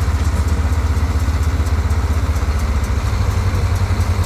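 John Deere 4440 tractor's six-cylinder diesel running steadily under load, driving a New Holland small square baler as it picks up and bales windrowed alfalfa. The result is a continuous deep engine hum with a fast pulse.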